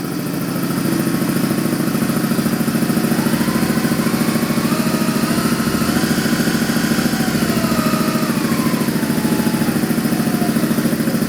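Shop air compressor running with a steady, fast pulsing. In the middle a higher whine steps up in pitch and then back down.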